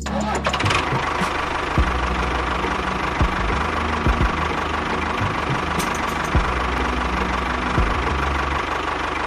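A small motor running steadily with a thin whine and a gritty rattle, with scattered clicks throughout.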